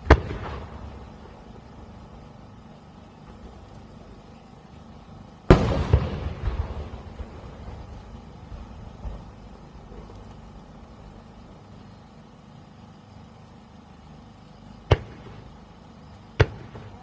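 Aerial fireworks shells bursting: a loud boom at the start, a second big burst about five seconds in that rumbles on for a couple of seconds, then two short sharp bangs near the end.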